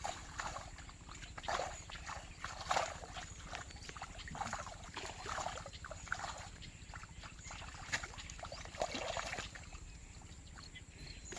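Irregular splashing and sloshing of water in short bursts, which stop a couple of seconds before the end.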